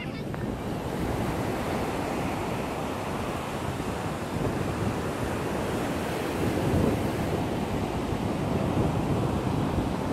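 Ocean surf breaking and washing up the beach, a steady rush that swells and eases, with wind buffeting the microphone.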